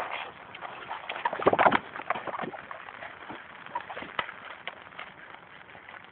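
A dog tearing and chewing at a sign: irregular cracking and crunching, loudest in a dense burst about a second and a half in.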